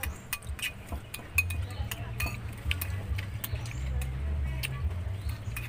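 Metal spoon and fork clinking and scraping against a ceramic soup bowl, a run of sharp clinks. A low rumble sits underneath from about a second and a half in.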